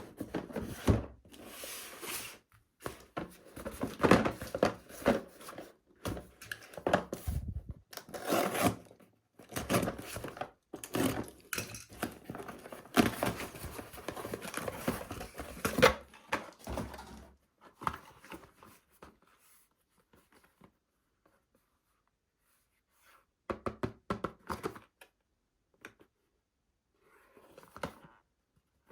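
Packaging being torn and crinkled open, as dense irregular rustling and tearing for about the first seventeen seconds. Then a few short clusters of clicks and handling noises near the end.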